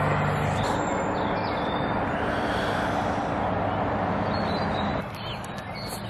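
Steady road traffic noise with a low hum. It drops off suddenly about five seconds in, leaving a quieter background with faint high chirps.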